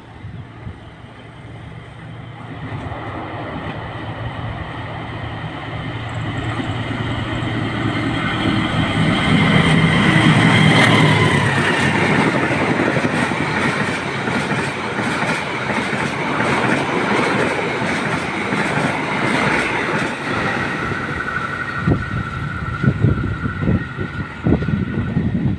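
Diesel-hauled passenger train of stainless-steel coaches approaching and passing close by. The locomotive's engine grows loudest as it goes past about ten seconds in, then the coaches run steadily over the rails, with a quick run of wheel knocks over the rail joints near the end.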